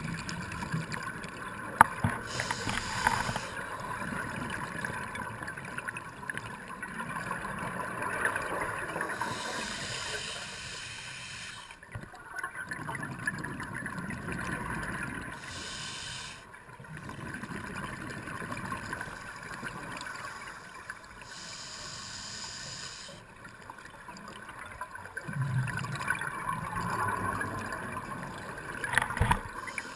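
Scuba regulator breathing heard underwater: bubbly gurgling with a hissing burst of exhaled bubbles about every six seconds. A few sharp clicks come near the start and near the end.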